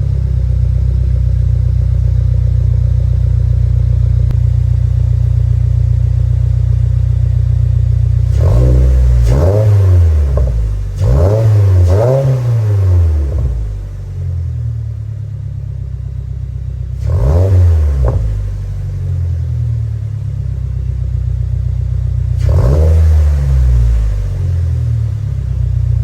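2022 Subaru WRX's turbocharged FA24 flat-four idling through a MAPerformance street catback exhaust and P&L catted J-pipe, with throttle blips: a quick run of several revs about a third of the way in, then two single revs later, each rising and falling back to idle.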